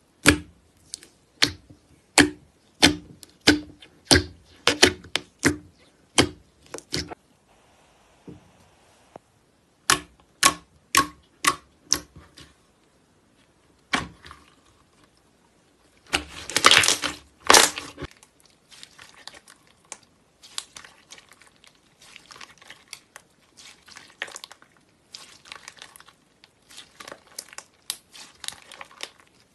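Thick slime being poked, pressed and stretched by hand: a run of sharp pops, about two a second, as fingers push into it, a denser crackling burst a little past halfway, then softer scattered crackles as the slime is stretched.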